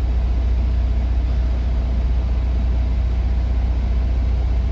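Steady low rumble of a car moving, heard inside the cabin.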